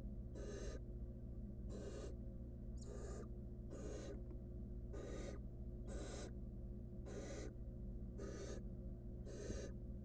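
Barn owl nestlings giving their rasping, hissing begging calls, short hisses repeating about once a second, over a steady low hum.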